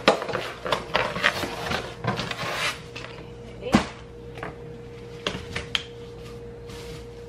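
Cardboard packaging being pulled out of a compact stroller's seat: rustling and scraping with a run of clicks and knocks, one sharp knock about four seconds in and a few more clicks soon after. A steady faint hum sits underneath.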